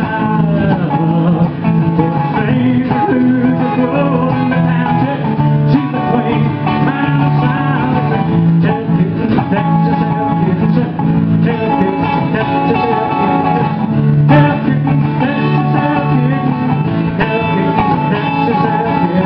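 Country song played live on a strummed acoustic guitar: an instrumental break between verses.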